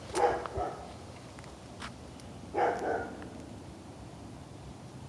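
Dogs barking: two short barks near the start and another a little after two and a half seconds in.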